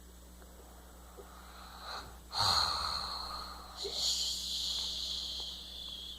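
Snoring while falling asleep: a loud snore with a low rattle about two and a half seconds in, then a long hissing breath from about four seconds that fades near the end.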